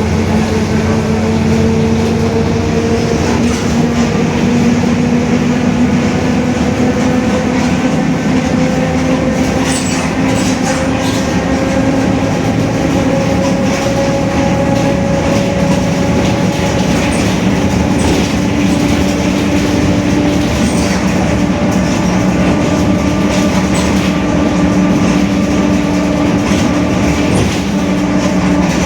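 Mercedes-Benz OF-1721 city bus under way, its differential growling with a steady whine over the running diesel engine. The whine climbs slowly in pitch through the first half and changes to a new steady pitch about halfway through.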